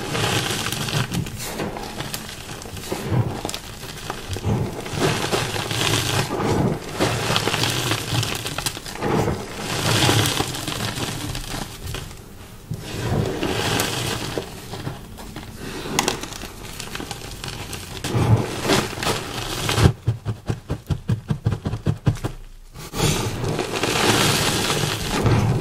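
Close-up crunching and chewing of dyed chalk blocks: dense, irregular crackly crunches, with a quick run of small crackles about twenty seconds in. Dyeing and pasting has made this chalk crunchy and dusty rather than soft.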